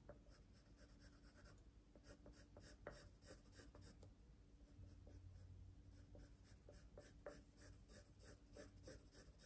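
A drawing tool scratching faintly on paper in quick, short repeated strokes, several a second, as a shadow is shaded in.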